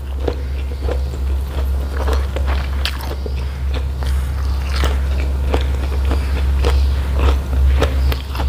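Close-miked eating sounds: wet mouth clicks and smacks, about one or two a second, as a hand-fed mouthful of rice, jengkol and butterfly pea flowers is chewed. A steady low hum runs underneath.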